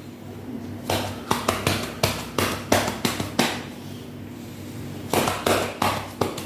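Hands patting on a patient's back over the shoulder blades: chest-physiotherapy percussion to loosen phlegm. A quick run of about nine pats at roughly three a second, a pause of over a second, then about four more.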